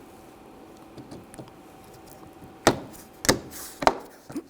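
Clip-in door trim piece being pressed and tapped home onto its clips on the door: four sharp snaps or knocks, a little over half a second apart, in the second half.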